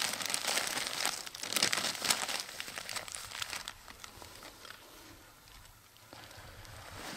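Dense crinkling, rustling noise, loudest over the first few seconds, dying down to a faint hiss past the middle and picking up again near the end.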